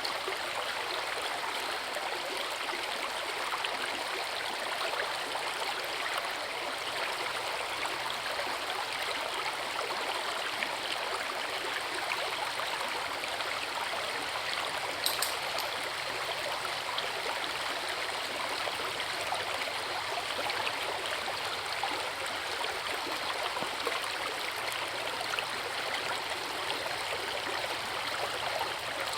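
Forest river running steadily over a waterfall, an even unbroken rush of water. A single sharp click about halfway through.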